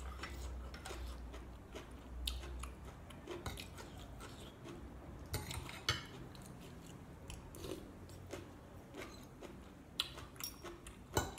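Metal fork and spoon scraping and clinking against a ceramic plate while food is gathered from it. The sharp clinks are scattered and irregular, busiest near the end.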